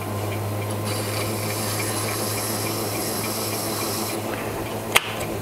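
Mini lathe running with a steady low hum, brass stock turning in the chuck, while the point of a caliper jaw scribes a line into the blued brass, adding a thin scratchy hiss from about one second in to about four seconds in. A single sharp click near the end.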